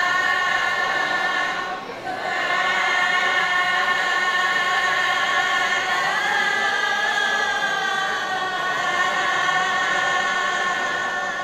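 Unaccompanied voices singing a Balinese devotional chant (dharma gita) in long held, slowly wavering notes, with a short break for breath about two seconds in.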